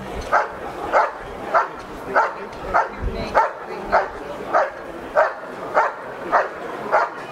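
German Shepherd barking steadily and rhythmically, about one and a half to two barks a second, in an IPO protection hold-and-bark at the hide, where the dog holds the helper there by barking.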